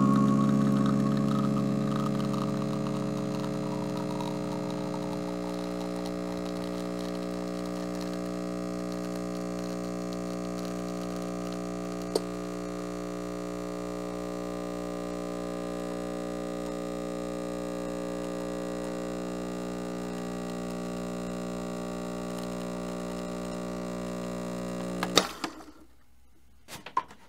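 Espresso machine's pump humming steadily as the shot is pulled, then cutting off suddenly near the end when the extraction stops.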